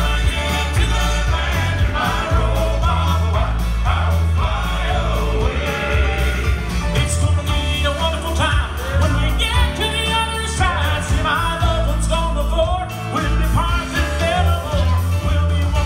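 Southern gospel male quartet singing in harmony into microphones, backed by keyboard accompaniment with a steady stepping bass line.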